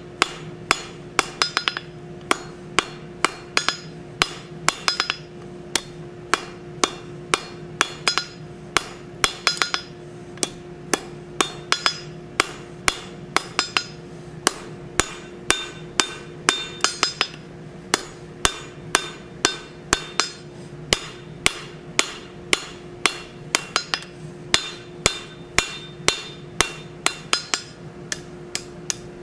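Hand hammer striking a red-hot steel bar on a steel anvil, drawing the bar out between two shoulders: a steady rhythm of about two to three blows a second with brief pauses, some blows ringing. A steady hum runs underneath.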